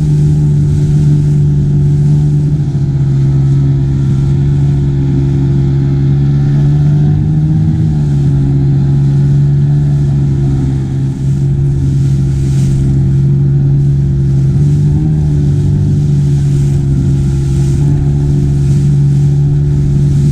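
Outboard motor of a small inflatable boat running steadily at speed, with water hissing and splashing against the hull in choppy waves. The engine note wavers briefly a few times as the boat rides over the chop.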